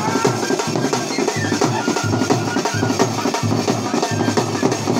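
Live drumming: a large drum beaten loudly in a fast, steady rhythm.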